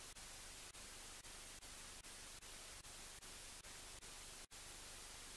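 Faint, steady hiss of recording noise with no other sound, broken by very brief dropouts about twice a second.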